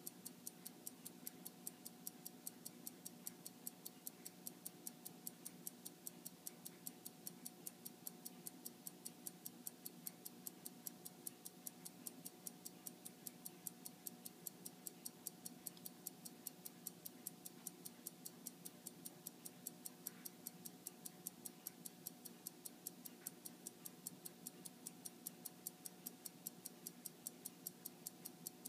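Fast, even ticking of a 1914 Omega skeleton watch movement running, faint, over a steady low hum.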